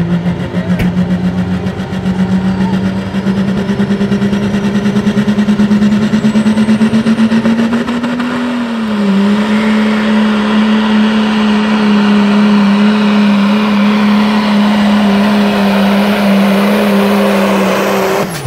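A diesel Dodge Ram pulling truck runs hard under load dragging a weight-transfer sled. Its engine note climbs slowly for about eight seconds, dips briefly around nine seconds in and holds steady, then drops off sharply near the end.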